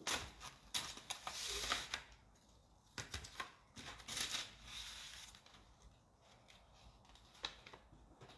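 Paper rustling and crinkling as loose sheets are handled and shuffled, in two longer spells in the first half, then a few light ticks and taps.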